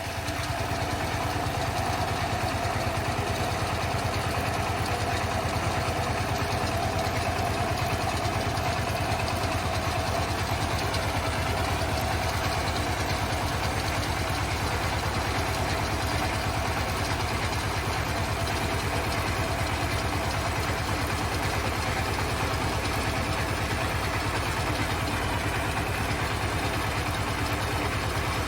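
Engine of a 35 hp compact tractor running steadily at a constant speed, with no change in pitch or load.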